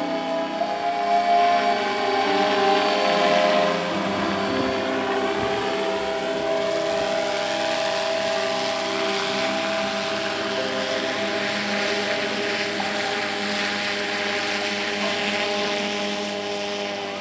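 Large radio-controlled scale model helicopter flying close by: a steady motor whine with rotor whir, the pitch drifting slightly. The sound changes character about four seconds in.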